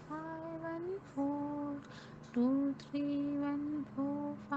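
A woman's voice chanting the number sequence 'two three one four five one four' as a slow, sing-song mantra, each number held on a pitch, over a faint steady low drone.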